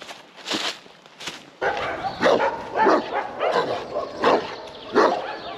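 Large dogs barking, starting about a second and a half in and repeating about once every two-thirds of a second, with a couple of footsteps on the path before the barking begins.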